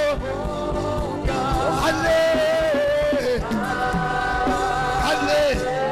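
Live gospel worship music: voices singing long held notes that bend up and down, over a band accompaniment.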